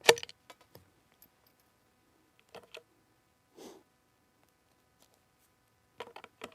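Sharp mechanical clicks from a .22 rimfire rifle being handled: one crisp click right at the start, a pair of small clicks about two and a half seconds in, and a cluster of clicks near the end, with a brief soft rustle between them.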